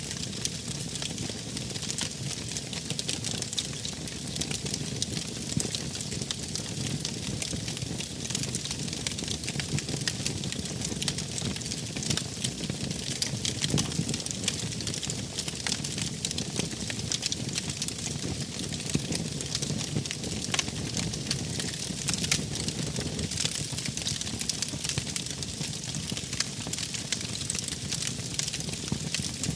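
Wood fire burning, crackling steadily: a dense run of small pops and snaps over a low rumble of flames.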